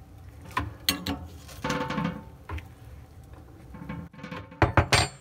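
Metal wrench clicking and clinking against the compression nut of a cold-water supply line at its shutoff valve as the nut is worked loose: irregular sharp metallic knocks, some with a short ring, the loudest two close together near the end.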